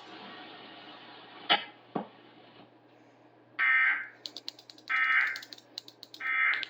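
Two sharp clicks, then three short, loud warbling data bursts about 1.3 s apart: the Emergency Alert System end-of-message (EOM) signal that closes the AMBER Alert broadcast.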